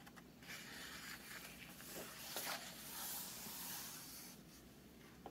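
Faint paper rustling and sliding as a picture book's page is turned and smoothed down, lasting about four seconds.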